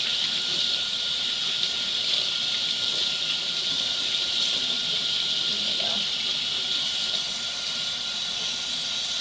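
Kitchen faucet running steadily, the water stream hissing as it pours over rinsing hands into a stainless steel sink. A thin steady whistle runs underneath.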